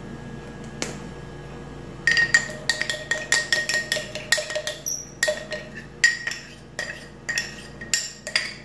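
A spoon tapping and scraping inside a glass measuring cup to knock out the last of the cornstarch: a rapid run of clinks with a ringing glass tone, starting about two seconds in.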